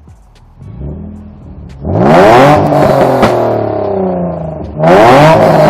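Nissan 350Z's 3.5-litre V6 revved hard through a catless exhaust with test pipes in place of the catalytic converters, very loud. After a small blip, there are two sharp revs, about two seconds in and again near the end, each climbing and then falling back toward idle.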